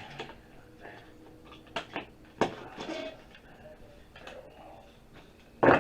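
Scattered clicks and light knocks of small electronic scrap parts and a circuit board being handled on a work surface, with one loud knock near the end.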